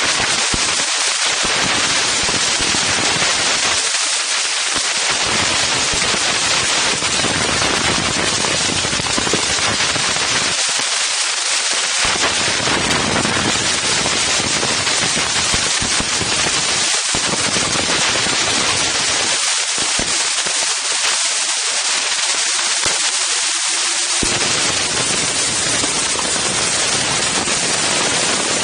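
Strong wind buffeting the Insta360 One X camera's microphones: a loud, steady rush of noise, crackling with rapid rough clicks.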